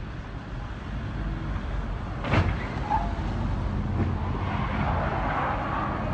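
Street traffic, cars running and rolling past, with the rushing noise swelling as a car passes close near the end. A single sharp knock about two seconds in.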